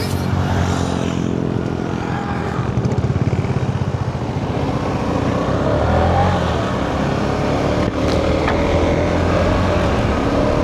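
Motorcycle engine running while riding, its pitch rising and falling a little with the throttle.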